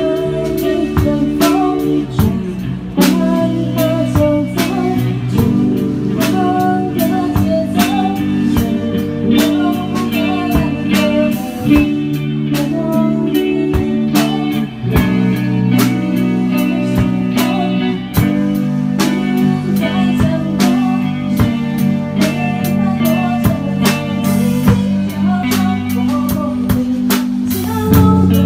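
Live band playing, with an electric guitar and a drum kit keeping a steady beat under sustained chords and a melody line.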